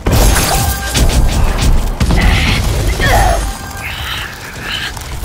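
Background music layered with film sound effects: a dense, loud run of booms and crashing hits.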